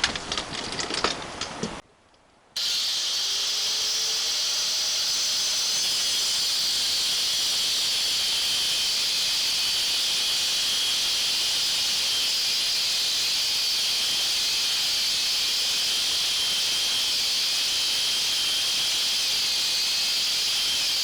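Cut-off wheel grinding a slot into a broken starter bolt in the engine block, a steady high hissing whine that starts about two and a half seconds in after a short gap and keeps an even level.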